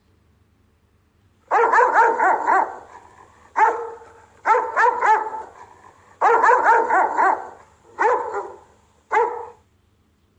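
Rottweiler guard barking: about six runs of quick barks separated by short pauses. The runs start about a second and a half in; some are single barks, others four or five in a row.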